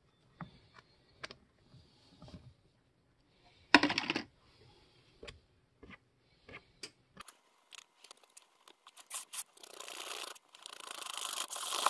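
Wire whisk mixing flour into cake batter in a plastic mixing bowl. At first there are scattered light taps and scrapes, with one louder clatter about four seconds in. Then comes fast, steady, scratchy whisking that grows louder over the last few seconds.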